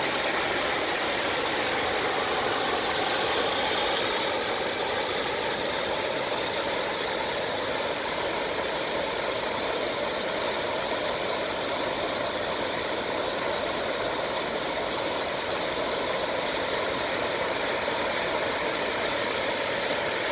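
Water spilling over a low-head river dam: a steady rush of falling water with no let-up.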